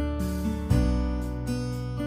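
Background music: acoustic guitar picking and strumming notes over a low bass, which moves to a new chord about two-thirds of a second in.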